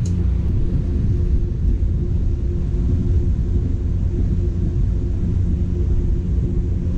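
Electric box fan running: a steady low rumble and hum.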